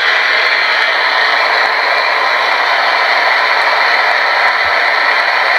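Spirit box, a portable radio with a telescopic antenna, putting out loud, steady static hiss from its speaker.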